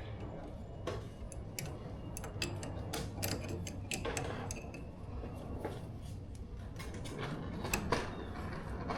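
Irregular light clicks and taps, as of hand tools and small metal parts being handled during tractor pedal work, over a faint steady low hum.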